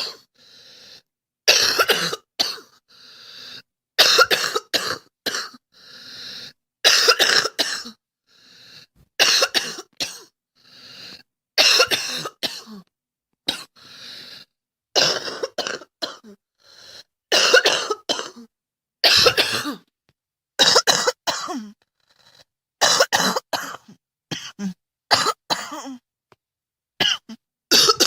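A girl coughing over and over, in clusters of a few sharp coughs every couple of seconds.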